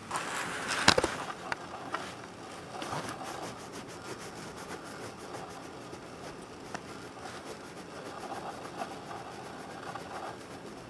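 Fabric rustling as a blanket is handled close by, loudest in the first second with a sharp knock about a second in and a few lighter knocks after, then soft, steady rustling.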